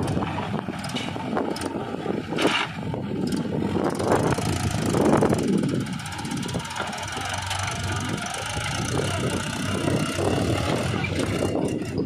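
JCB 3DX backhoe loader's diesel engine working under load as the backhoe dumps soil and swings its arm, with a Mahindra tractor's diesel engine running alongside. A couple of louder knocks come about two and a half and five seconds in.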